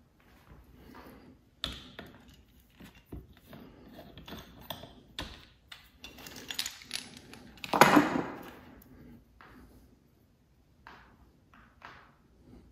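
Metal bearing-puller parts and hand tools handled on a wooden workbench: scattered clinks and light knocks, with one louder clatter about eight seconds in, as of a metal tool set down on the bench.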